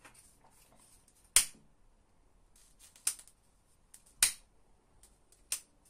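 Four sharp metallic clicks from an electric door lock's spring-loaded latch mechanism being worked by hand; the first click is the loudest.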